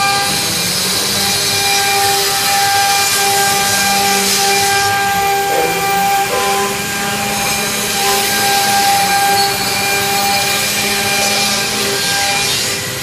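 Six-spindle CNC router (engraving machine) running and cutting, a steady high whine from the spindles over a hissing cutting noise.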